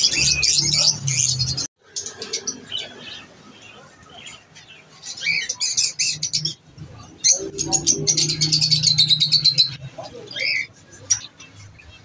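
Many small caged birds chirping and chattering together in bursts, busiest about a third and again two thirds of the way through.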